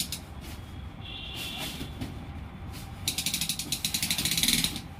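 Bamboo chick blind being rolled up by its pull cord, the cord running through the roller pulleys with a fast rattle of clicks that is loudest from about three seconds in until just before the end. A brief high squeak comes about a second and a half in.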